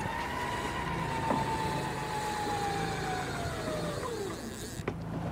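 Scotty electric downrigger motor whining as it winches the weight up. The pitch climbs, holds steady, then drops and dies away about four seconds in as the motor stops. A low engine hum runs underneath.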